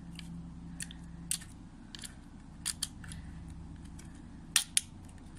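Hard plastic parts of a toy drone's wheel and wheel guard clicking and tapping as they are handled and fitted together: a few scattered sharp clicks, the loudest pair about four and a half seconds in.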